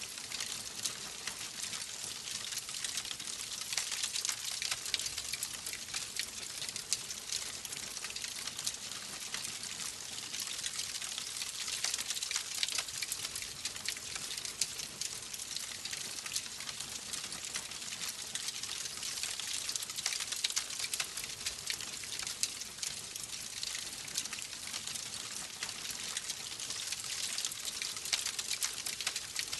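Wood fire burning steadily, a constant hiss of flames dense with small crackles and pops.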